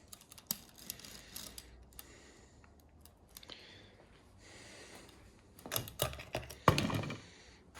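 Light clicks, taps and rustling of objects being handled, with a cluster of louder knocks and scrapes near the end.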